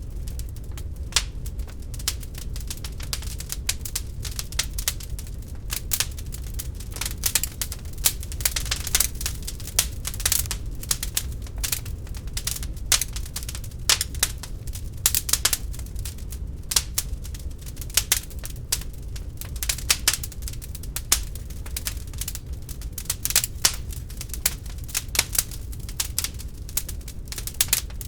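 Wood fire burning in a fireplace, crackling with frequent irregular sharp pops over a low steady rumble of the flames.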